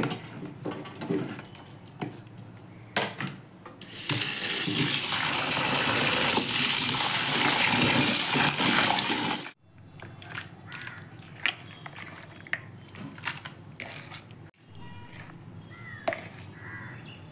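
Kitchen tap running hard into a plastic bowl of mutton pieces in a steel sink while they are rinsed by hand. The water starts about four seconds in and cuts off suddenly about five seconds later; light knocks and clicks of handling come before and after.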